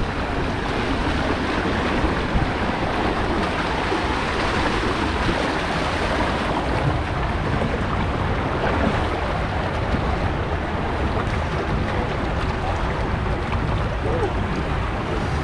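Water gushing steadily into a water slide's start pool and splashing around an inflatable raft tube, a constant rushing noise.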